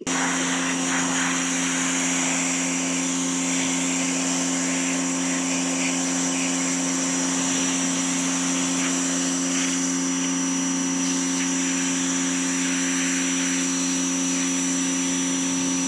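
Pressure washer running steadily, its motor humming under a high whine while the jet hisses into a shallow steel radiator tank, rinsing it out.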